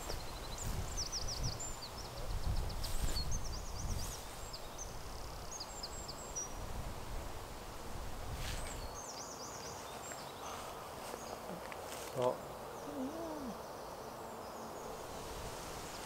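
Small woodland birds singing high-pitched, quickly repeated twittering notes over a low rumble that dies away about halfway through. A single sharp tap comes about three-quarters of the way through.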